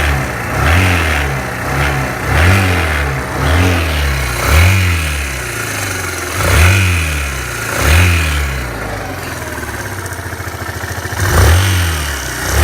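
Suzuki Van Van's air-cooled single-cylinder engine revved repeatedly from idle, each blip rising and falling in pitch, about one a second, with a short steady idle around nine seconds in before two more revs. Revving brings out an odd engine noise that is absent at idle; the noise is still there after an oil change and a valve adjustment, and a service shop calls it normal.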